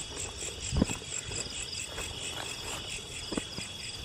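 Night insects such as crickets chirping: a steady high trill with quick, evenly repeating chirps above it. A few soft low thuds are heard under it.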